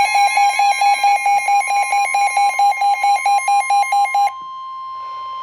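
Weather-radio emergency alert tones: a rapid electronic beeping, about six beeps a second, over a steady high tone. The beeping stops about four seconds in and the steady tone holds on alone; the tones signal that a National Weather Service warning is about to be read.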